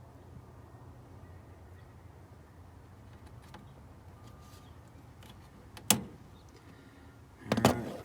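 Plastic engine-bay trim pieces being pressed back into place: one sharp click about six seconds in, then a louder cluster of knocks and clicks near the end, over a faint steady low hum.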